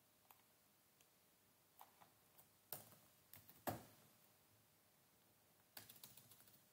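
Faint computer keyboard keystrokes as code is typed in: scattered single taps, a short burst a little past the middle with one louder key, and a quick run of taps near the end.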